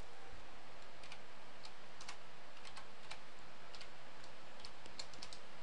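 Computer keyboard being typed on: irregular, separate key clicks over a steady background hiss.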